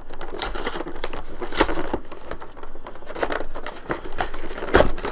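Cardboard Pokémon card collection box being handled and worked open: irregular scraping and rustling of the cardboard and its plastic window, with a few knocks, the loudest near the end.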